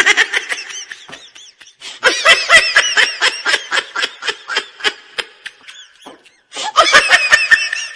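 High-pitched, rapid laughter in three bursts: one at the start, a long one from about two seconds in, and a last one near the end.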